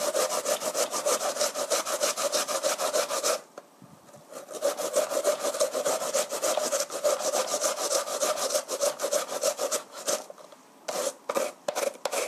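Carrot being grated by hand on a flat grater over a plastic box: quick, even rasping strokes, several a second. They stop for about a second some three and a half seconds in, then resume, ending in a few slower, scattered strokes.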